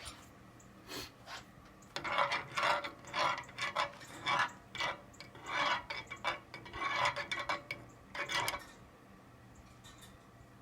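A spoon scraping around the inside of a pot, stirring beeswax melting into mineral oil, in a run of rhythmic strokes about two a second after a couple of faint scrapes.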